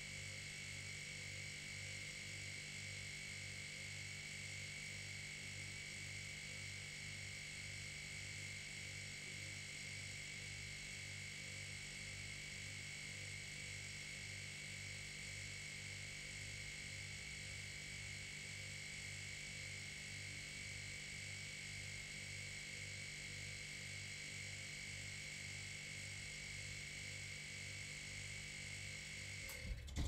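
Old refrigerator's compressor running with a steady buzzing hum and a high-pitched whine, the low hum throbbing slowly and evenly. Right at the end it cuts off with a clunk as the compressor switches off.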